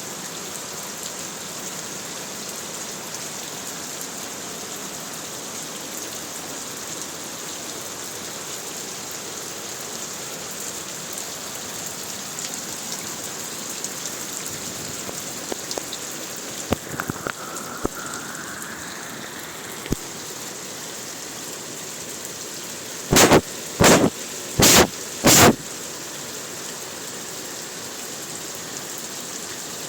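Heavy rain falling steadily, an even hiss of rain on surfaces. About three-quarters of the way through come four loud, short bursts of noise in quick succession, well under a second apart.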